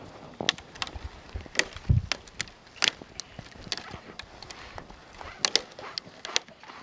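Small kindling campfire crackling: irregular sharp pops and snaps of burning twigs, with a dull thump about two seconds in.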